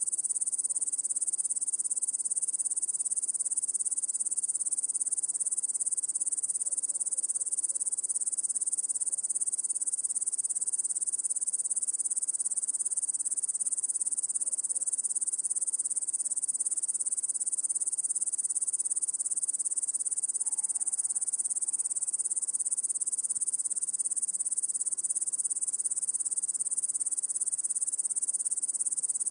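Dense chorus of crickets chirping continuously, a steady high-pitched trill.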